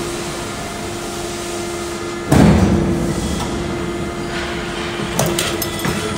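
C-channel roll forming machine running with a steady hum, then a single loud bang about two seconds in as its hydraulic die strikes and cuts the profile. A few light metal clinks follow near the end as the cut piece is pulled from the die.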